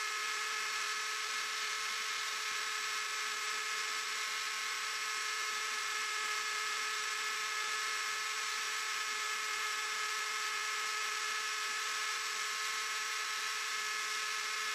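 Small hobby CNC machine running, a steady whir with a few fixed whining tones from its motors.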